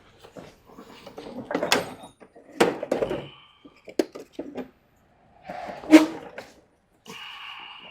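Metal CV joint parts being handled on a workbench: several sharp knocks and clinks with scraping between them, the loudest knock about six seconds in, and a short squeak near the end.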